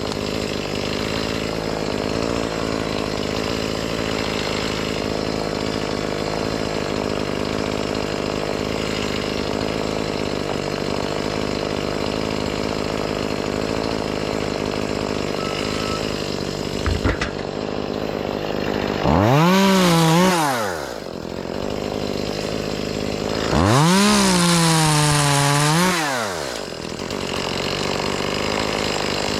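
Chainsaw over a steady engine drone, revved up twice for two to three seconds each, the pitch rising, holding and dropping back to idle each time.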